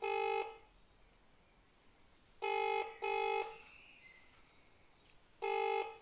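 British telephone ringback tone heard through a phone's speaker: pairs of short rings, about every three seconds, while an outgoing call waits to be answered.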